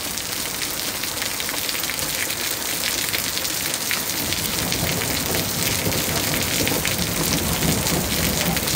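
Steady rain falling and spattering on nearby surfaces, with many individual drop hits, growing slightly louder.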